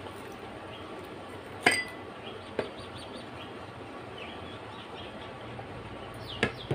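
Tableware clinking: one sharp ringing clink a little under two seconds in, a softer knock shortly after and two more clicks near the end. Faint bird chirps sound in the background over a steady low hiss.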